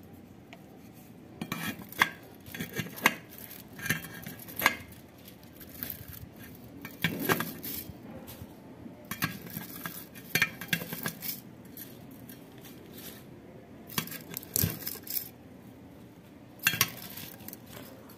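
Old aluminium winding wire being pulled out of a WEG 1/2 hp pump motor's steel stator with pliers: irregular metallic clinks, clicks and short scrapes as the strands come free against the core and the pliers.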